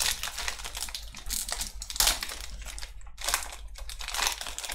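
Foil wrapper of a Pokémon trading-card booster pack crinkling and tearing as it is ripped open by hand, a dense run of crackles.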